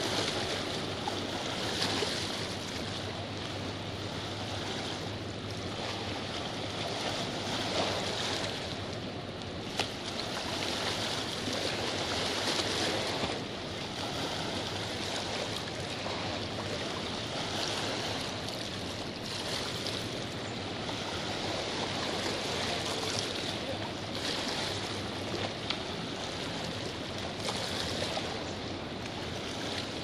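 Rhine Falls waterfall rushing steadily as a dense, even roar of falling and churning water that swells and eases a little from moment to moment.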